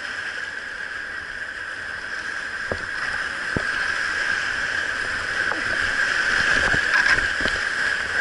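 Rushing whitewater of a river rapid heard from a kayak, a steady hiss of moving water. From about three seconds in come a handful of short, sharp knocks and splashes.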